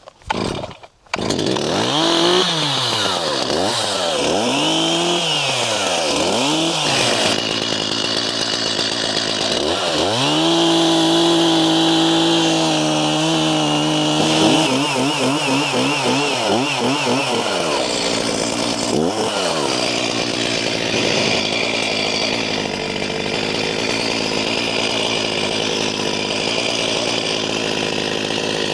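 Chainsaw coming in suddenly about a second in, revving up and down several times, then held at high revs for about four seconds midway, and running on unevenly to the end while clearing a trail.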